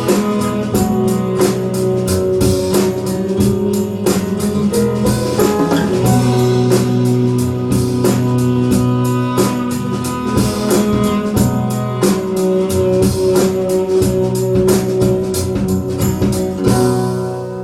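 A recorded song with guitar and drums played back over a hi-fi system driven by a GM70 tube amplifier, fading out near the end.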